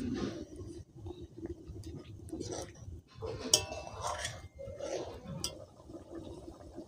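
A steel spatula scraping and clinking against a large metal kadai as gravy is stirred, in scattered short knocks. A brief animal call sounds around the middle.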